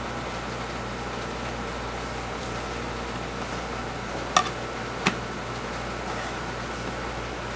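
Steady room hum of a fan or air-conditioning unit, with two sharp knocks a little under a second apart just past the middle.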